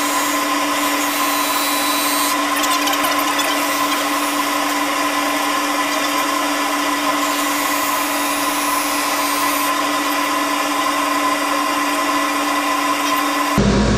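Big disc sander running steadily with a constant hum, its abrasive hissing against the edge of a scrap board that is swung round the circle jig's pivot to sand a curved arch.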